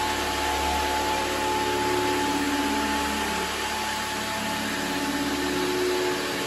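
Single-disc rotary floor scrubber running steadily, its electric motor driving the brush over soapy wet carpet: an even hiss with a few steady motor tones under it.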